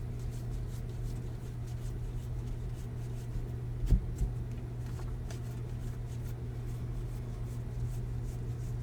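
Trading cards being handled and flipped through: soft rustling and light ticks, with one sharp tap about four seconds in, over a steady low hum.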